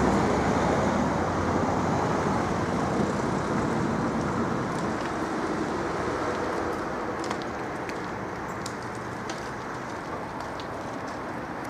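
Steady rumble of passing traffic, slowly fading away, with a few faint sharp clicks in the second half.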